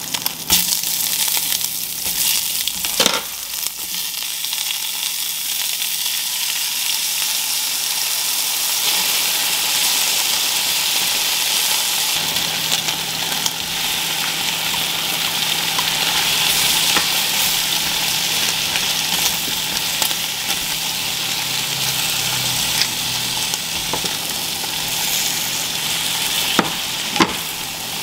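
Onions and then tomatoes sizzling as they fry in a hot cast iron skillet, a steady hiss that grows louder about a third of the way in. A few sharp knocks near the start and near the end.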